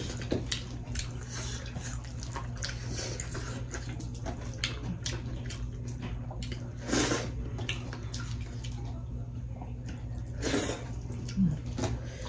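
Close-miked mukbang eating sounds: wet squishing and smacking as dhido and chicken are eaten by hand, with chewing and small clicks throughout and two louder wet sounds about seven seconds and ten and a half seconds in.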